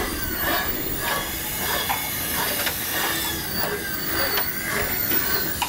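Rudder steering wire being pulled through a small drilled hole in the wooden hull: a steady hiss of the wire sliding and rubbing through the wood.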